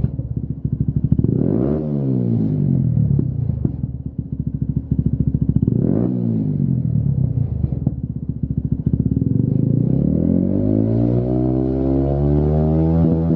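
Honda CBF125's single-cylinder four-stroke engine running through a Lextek GP1 aftermarket silencer. It idles with a steady beat and is blipped quickly twice, about two and six seconds in. Near the end it is revved up more slowly and held higher before falling back.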